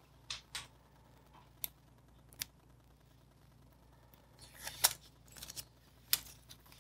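Scattered small clicks and crinkles of a protective backing being peeled off an adhesive rubber gasket by hand, sparse at first and then a quick cluster in the second half, the sharpest about two-thirds of the way in and near the end.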